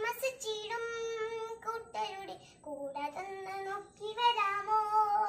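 A young girl singing a Malayalam children's action song with no accompaniment, in short phrases of held notes with brief pauses between them.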